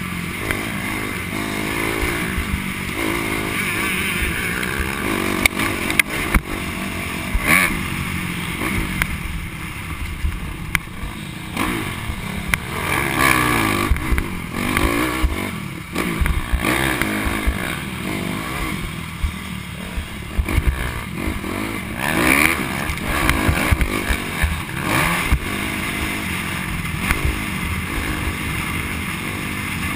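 Dirt bike engine revving up and down as it is ridden around a motocross track, heard from a helmet-mounted camera, with sharp knocks now and then.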